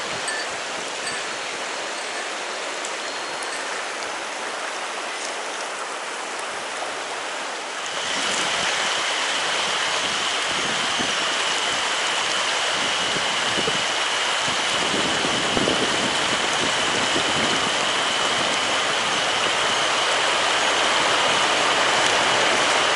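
Mountain stream water rushing steadily over rocks. About eight seconds in it becomes louder and fuller, and a steady high-pitched tone joins it.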